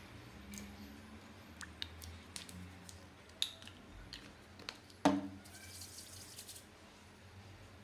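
Small clicks and taps of a cosmetic jar being handled, with one sharp knock about five seconds in, followed by a brief dry hiss of palms rubbing together.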